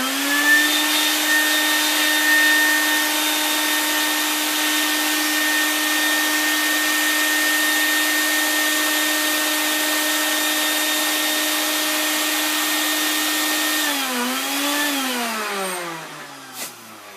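Wet and dry vac motor blowing air through its hose into a 24-inch latex balloon: a steady, loud motor whine. About 14 seconds in, the pitch dips and recovers briefly, then the motor winds down with falling pitch near the end.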